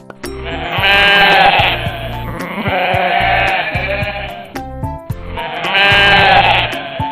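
Sheep (ram) bleating over background music, with two loud bleats, one about a second in and one near the end.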